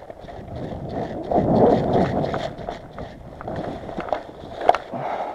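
A person moving on foot over gravel and then through dense grass and brush: crunching steps, rustling and scraping vegetation, and the knock and rattle of carried gear. There is one sharper click near the end.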